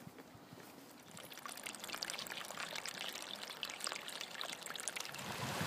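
Small stream of water trickling and splashing over rocks, growing louder from about a second in.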